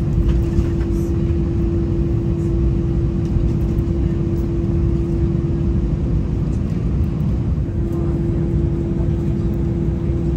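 Airbus A319 cabin noise heard from inside the cabin: a steady low rumble with a steady droning tone over it, which drops out about six seconds in and returns about two seconds later.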